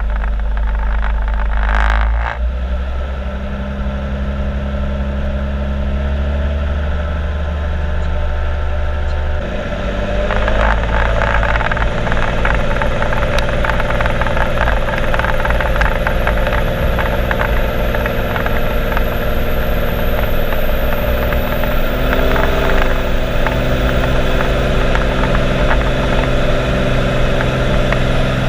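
Cessna TTx's turbocharged six-cylinder piston engine running steadily; about ten seconds in its note shifts and it grows louder as power is increased, and it holds there. A faint high whine rises slowly in the background.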